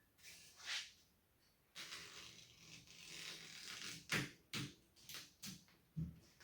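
Rubber drawer-liner matting being cut: a soft, dragging rasp for about two seconds, followed by several sharp clicks and knocks as the material and tool are handled.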